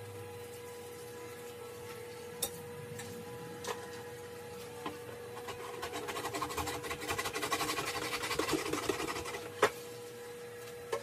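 Dishes being washed by hand at a kitchen sink: a few scattered clinks of dishware, then several seconds of rapid scrubbing about halfway through, ending in one sharp clink.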